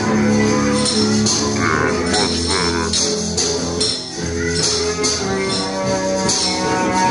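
Live band music: guitar with a hand drum and jingling percussion keeping a steady, regular beat.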